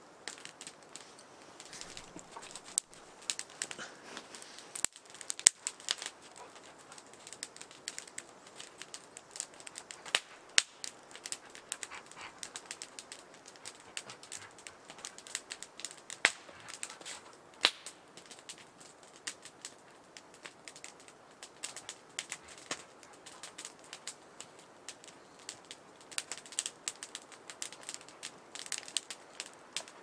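Wood fire crackling, with frequent irregular sharp pops and snaps, a few much louder than the rest: a sparky fire.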